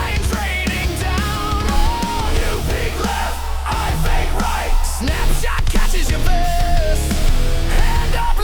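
Heavy rock song playing as background music, loud and steady, with a constant bass line under held melody notes.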